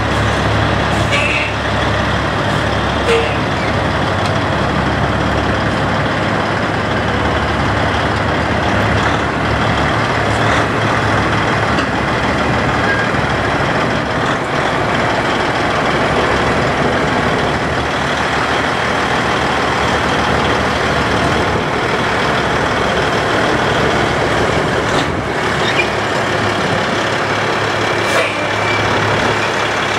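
Peterbilt 362 cabover truck's diesel engine running steadily as the truck drives down off a trailer ramp and rolls away slowly, with a few short clicks.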